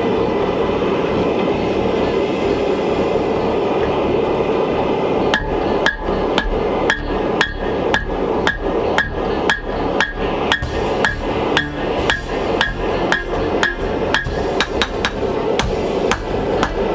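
Steady rushing roar of a gas forge burner. About five seconds in, rhythmic hammer blows on metal join it, about three a second, each with a short ringing tone.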